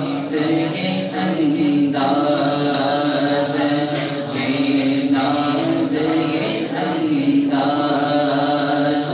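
A man singing a naat solo and unaccompanied into a microphone, amplified through a PA loudspeaker, in a slow chant-like melody with long held notes.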